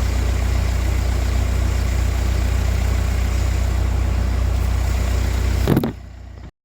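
A motor or engine running steadily with a heavy low hum, cutting off suddenly near the end.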